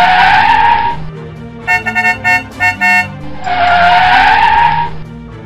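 Cartoon car sound effects over light background music: a tyre screech with a slightly rising pitch, a quick run of short horn toots about two seconds in, then a second tyre screech.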